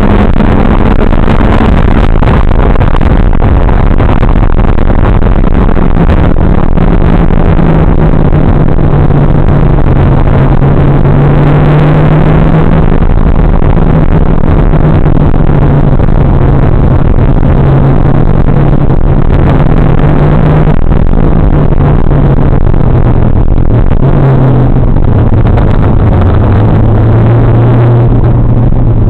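Mitsubishi Lancer Evolution X GSR's turbocharged four-cylinder engine running under load on track, its drone sinking slowly in pitch with a brief rise about three-quarters of the way through. The recording is overloaded and badly distorted.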